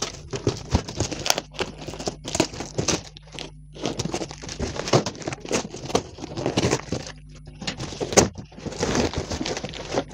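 Brown paper, packing tape and cardboard of a parcel being ripped and crinkled as the box is torn open by hand, in irregular bursts of tearing and rustling.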